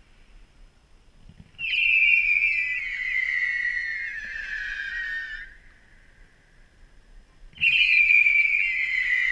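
Two firework whistles, each a loud shrill tone that slides down in pitch over about four seconds. The first starts about one and a half seconds in and cuts off suddenly; the second starts near the end.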